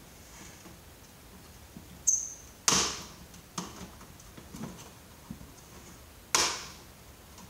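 Tools and monitor parts clacking and clicking as a CRT computer monitor is taken apart. There are two sharp, loud knocks with a short ring, one about two and a half seconds in and one near the end, and lighter clicks between them. Just before the first knock comes a brief high squeak.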